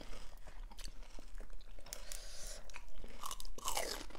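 Close-up crunching and chewing of panipuri, the crisp hollow puri shells cracking irregularly as they are bitten and chewed.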